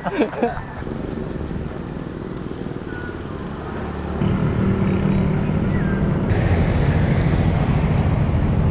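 Wind and road noise on a camera riding along on a bicycle, a steady rumble that jumps louder about four seconds in.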